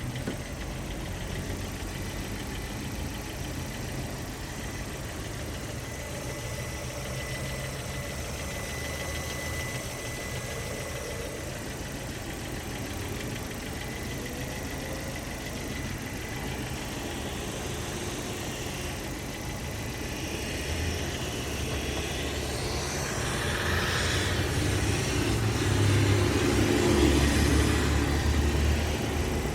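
Lada Priora engine running warm with a knock that is absent when cold and grows stronger once the engine is hot. The sound gets louder over the last third.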